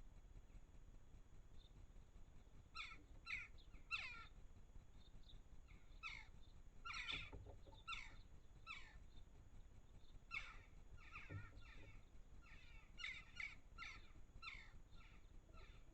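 Birds calling faintly: a string of short, harsh calls, each dropping in pitch, repeated many times and sometimes overlapping.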